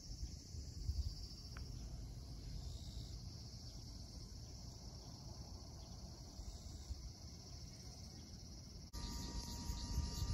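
Insects shrilling steadily in a high, even drone over a low wind rumble. About nine seconds in it gives way to a louder, different outdoor background with a faint steady hum.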